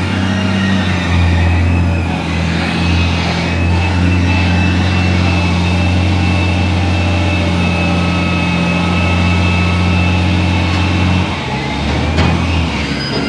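Linde reach stacker's diesel engine running steadily under load, with a thin high whine, as it lifts a 40-foot container on its spreader. About eleven seconds in the engine note drops off, and a sharp knock follows a second later.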